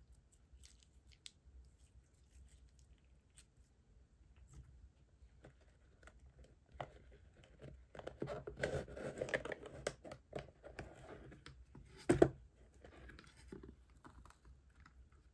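Faint sticky clicks of boba slime being kneaded, then a cardboard slime-kit box being unwrapped and opened: rustling and tearing about eight seconds in and a sharp crack about twelve seconds in, followed by softer rustles.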